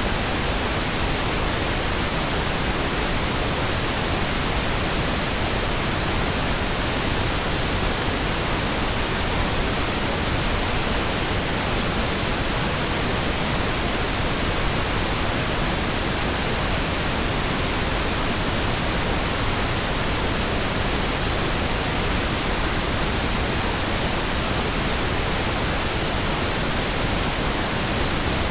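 Synthetic pink noise: a steady, even hiss spread across all pitches, with no changes or interruptions.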